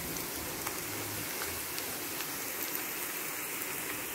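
Oil sizzling steadily in a frying pan as sliced onion and chopped garlic fry for a baghar (tempering), with a few faint pops.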